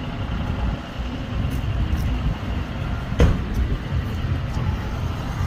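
Outdoor road ambience: a steady low rumble of car traffic, with a single sharp knock about three seconds in.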